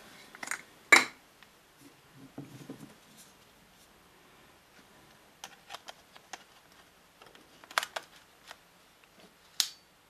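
Sharp clicks and knocks of a Zeiss Touit 50mm macro lens being fitted to a Sony A6000 camera's E-mount and handled. There is a loud knock about a second in, then runs of small clicks in the second half and one more sharp click near the end.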